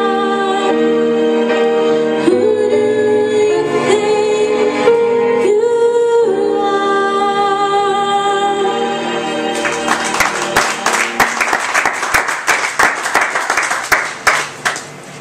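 A woman singing a song into a microphone with music, ending about nine and a half seconds in, followed by a few seconds of audience clapping.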